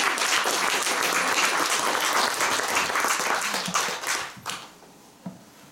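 Audience applauding, dying away about four and a half seconds in.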